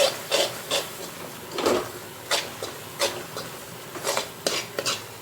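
A ladle stirring and scraping thick, nearly set beetroot halwa around a kadai, giving irregular scrapes and knocks against the pan.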